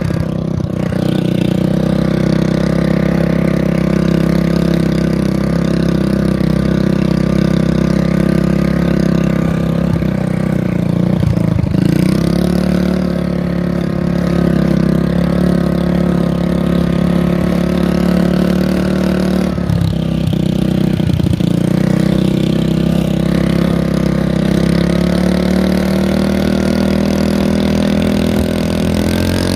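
Small engine of a home-built mini bike running at a steady speed, its pitch dipping briefly about a third of the way in and again twice about two thirds in, then rising near the end.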